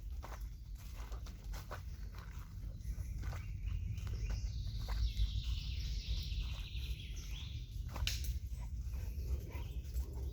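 Forest birds singing, with a dog panting and footsteps close by, over a steady low rumble.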